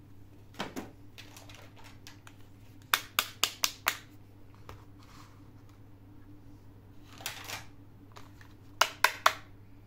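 Small plastic toy pieces being handled, clicking and tapping against each other: a quick run of five sharp clicks about three seconds in, a short rustle near seven and a half seconds, then three more clicks near the end, over a faint steady hum.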